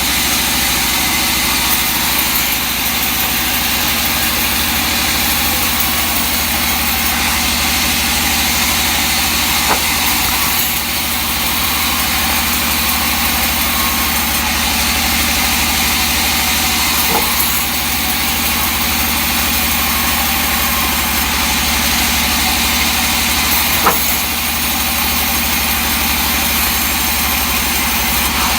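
Sawmill engine running steadily at a constant speed, with a few faint clicks.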